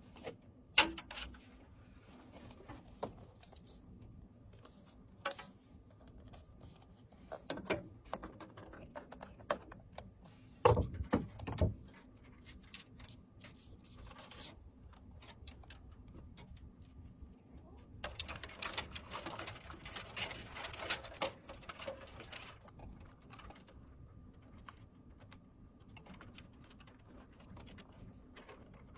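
Scattered clicks, taps and knocks of computer parts being handled and fitted during a PC build, with a denser cluster of knocks about eleven seconds in and a few seconds of rustling near the middle-to-late part.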